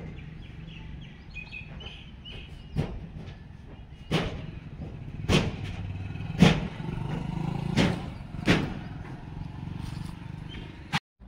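Steady low rumble of vehicle traffic, broken by six sharp knocks spaced about a second apart starting about three seconds in. The sound cuts out briefly near the end.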